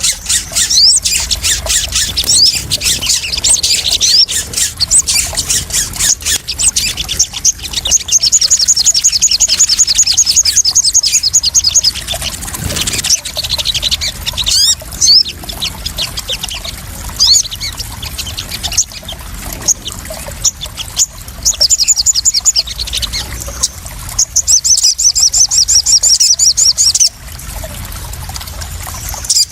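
Crimson sunbird (sogon) calling: sharp high chips and rapid trills, one long trill about eight seconds in and more near the end, over constant splashing water.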